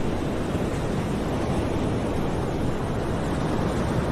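A steady rushing noise, like surf or wind, without pitch or rhythm and at an even level throughout.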